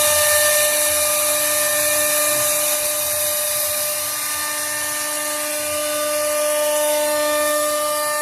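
Spindle of a 1325 wood CNC router running with a steady high-pitched whine over a hiss.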